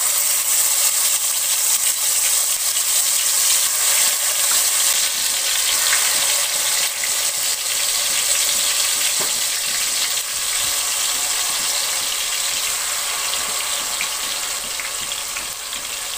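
Marinated chicken pieces sizzling as they fry in hot oil in a metal kadhai. The sizzle is a steady, loud hiss that eases slightly near the end.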